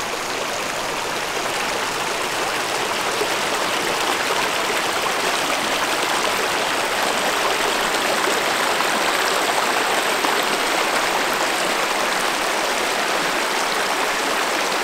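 Shallow, boulder-strewn river running over rocks and small rapids: a steady rush of flowing water, growing slightly louder over the first few seconds.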